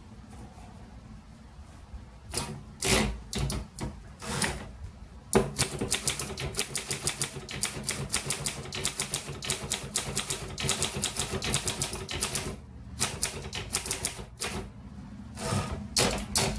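1936 Corona Standard portable type-bar typewriter being typed on: a few separate clacks, then a long rapid run of keystrokes. After a short break come more keystrokes and a few single clacks near the end.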